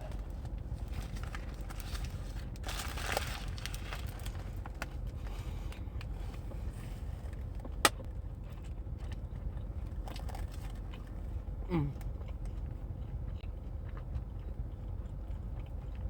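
A person eating a burger: faint chewing and wrapper rustling over a steady low hum, with one sharp click about eight seconds in.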